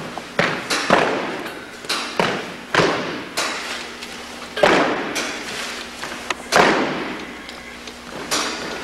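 Drill cadets' boots stamping together on a gymnasium floor: about nine sharp thuds at uneven intervals, each with a long echo in the hall.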